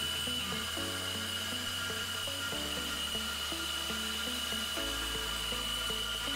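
Machine spindle with a small end mill cutting a lock slot in an aluminium window profile, a steady high whine. Background music with a bass note that changes every couple of seconds plays alongside.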